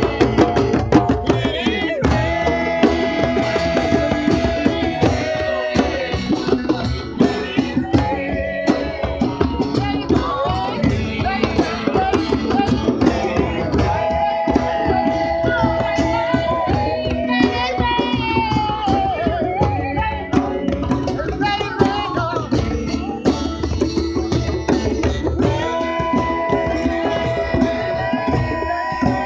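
Live acoustic band music: a woman singing into a microphone over a strummed acoustic guitar and hand drums, with some long held notes.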